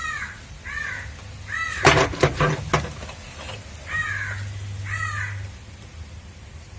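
A crow cawing repeatedly, about five calls, with a quick cluster of sharp clicks and knocks about two seconds in.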